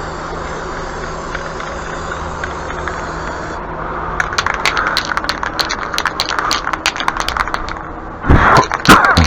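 A steady rushing hiss, then from about four seconds in a rapid, irregular metallic rattling, like the mixing ball in an aerosol spray paint can being shaken. It grows louder near the end.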